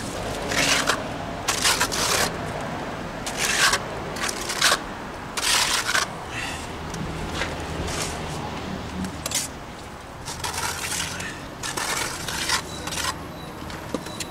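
Steel plastering trowel scraping wet cement plaster: scooping mix from a wheelbarrow and spreading a second coat onto a block foundation wall, in a series of short, irregular scraping strokes.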